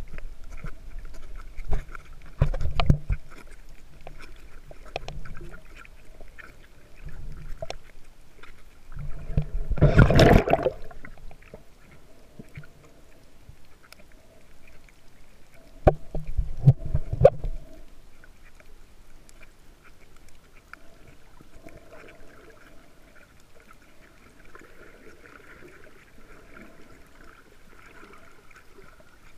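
Muffled underwater sloshing and knocking of water against a submerged camera while snorkelling. There is a loud rush of water about ten seconds in and another burst of splashing around sixteen to seventeen seconds, then a quieter steady underwater hiss.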